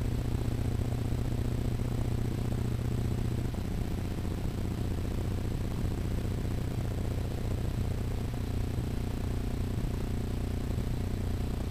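Steady low hum with an even hiss, the background noise of the room and recording while no music or voice is playing. The low hum eases slightly about three and a half seconds in.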